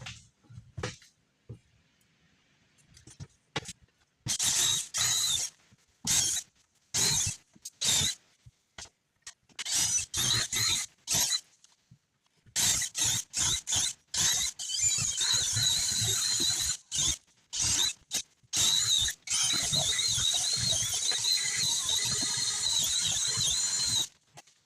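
Cordless drill with a 3/8-inch bit boring through a shop wall. It starts and stops in short bursts from about four seconds in, then runs steadily for the last ten seconds or so, with a high, wavering whine as the bit cuts.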